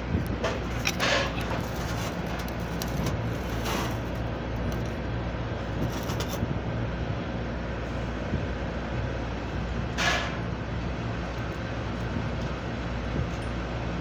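Steady low hum of running machinery, with a few brief hissing rushes, the clearest about ten seconds in.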